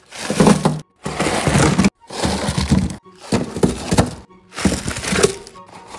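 Individually wrapped snacks being poured out of cardboard boxes into a wooden drawer: plastic wrappers crinkling and clattering as they tumble in. The sound comes in several separate bursts, broken by short moments of dead silence.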